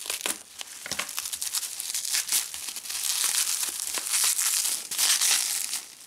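Plastic bubble wrap crinkling and crackling as it is cut and pulled open by hand, busier and louder from about two seconds in.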